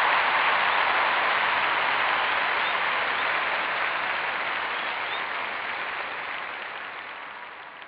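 Audience applause, slowly fading out.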